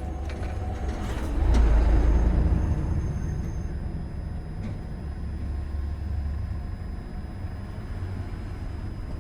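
Honda Freed Hybrid's drivetrain and road noise heard from inside the engine bay while driving in town: a low rumble that swells louder with a shifting pitch about a second and a half in, then eases to a steady drone.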